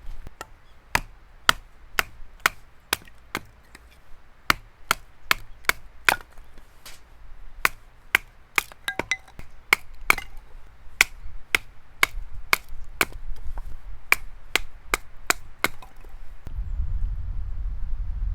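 Firewood being split: sharp knocks about twice a second, some thirty strikes in all, which stop a couple of seconds before the end. A low rumble comes in near the end.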